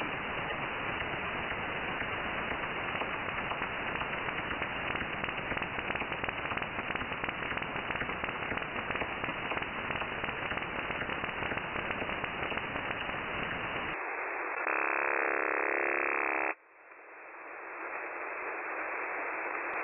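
Shortwave receiver audio in upper sideband: dense static with a fine, fast flutter, the sound of a suspected over-the-horizon radar signal in the 18-meter band. About fourteen seconds in it changes to a very strong, very wide signal with a repeating sweeping pattern. That signal lasts about two seconds and cuts off abruptly, and the background hiss swells back up. The listener wonders whether the wide signal is over-the-horizon radar warming up.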